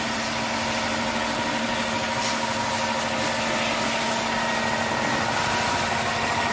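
Electric belt-driven air compressor running with a steady hum.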